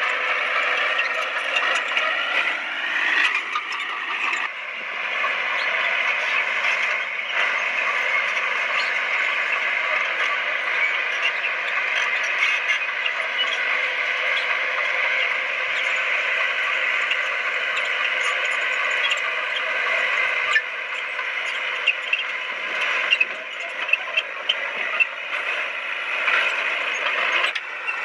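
Crawler bulldozer working: a steady engine note mixed with the clatter of its steel tracks, with a few sharper clanks near the end.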